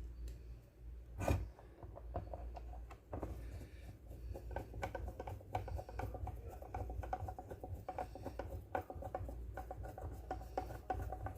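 Hands handling and fitting small plastic and metal parts of a blender's switch assembly: scraping, rubbing and quick small clicks, with one sharp knock about a second in.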